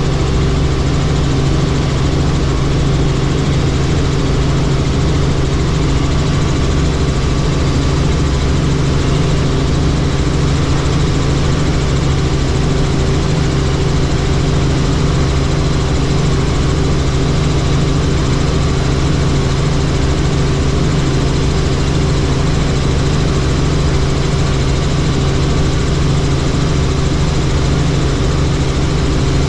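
Helicopter in flight: steady engine and rotor noise, a constant loud drone with a low hum that does not change.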